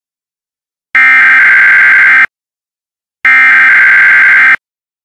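Emergency Alert System SAME header: two bursts of screeching digital data tones, each about a second and a half long, separated by about a second of silence. They are two of the three identical header bursts that open an EAS alert.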